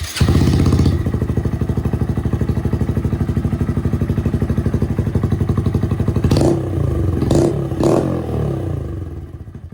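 2019 Honda Grom's single-cylinder 125 cc engine running through a ZoOM Brute full aftermarket exhaust. It idles with a steady even pulse, takes three quick throttle blips between about six and eight seconds in, then settles back to a quieter idle.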